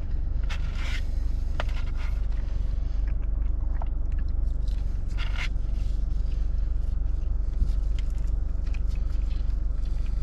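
Scraping and rustling handling noises as a gozleme flatbread is picked up and torn apart, in a few short bursts, over a steady low rumble inside a car.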